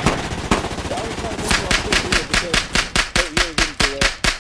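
Gunfire: a few single shots, then from about a second and a half in a rapid machine-gun-like burst of about seven shots a second that stops just before the end, with a voice underneath.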